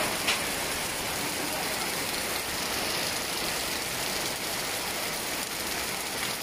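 Heavy rain pouring steadily, with one short knock just after the start.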